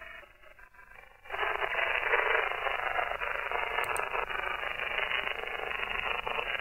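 Upper-sideband static from a shortwave receiver tuned to the 27 MHz CB band: a thin, narrow hiss with no voice on it. It is faint for about the first second, then comes back steady.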